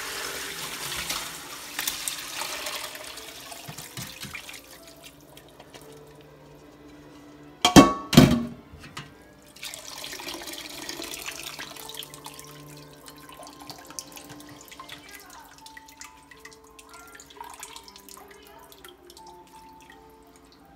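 Broth being poured from a stainless steel pot through a mesh strainer into a metal bowl in a steel sink, the liquid splashing. The pour stops, then come two loud clanks close together about eight seconds in. A second pour follows, then quieter clinks and rustles as the strainer of scraps is handled.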